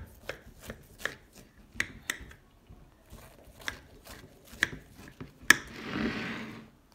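Knife cutting through a baked cake in a glass dish: a string of sharp, irregular clicks and taps as the blade strikes the glass, with a noisy rasp lasting about a second near the end.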